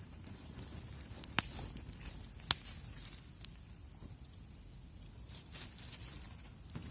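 Campfire crackling, with two sharp pops about a second apart and a few fainter ticks later.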